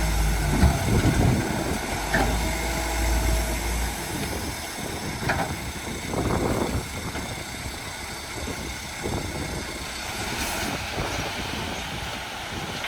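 Heavy construction machinery running, with a deep engine rumble that drops away about four seconds in and a few scattered metallic knocks.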